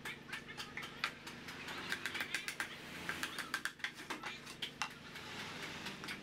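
Small hammer tapping on bamboo poles as the joints of a bamboo frame are knocked together: light, irregular knocks, at times several a second.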